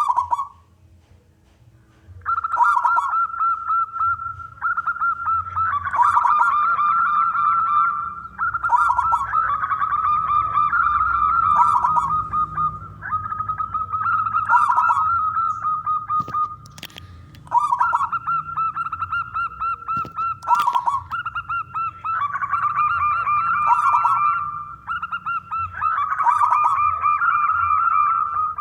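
Zebra dove (perkutut) cooing in a long run of repeated phrases, each a string of quavering, pulsing notes, starting about two seconds in. Two sharp clicks come through in the middle.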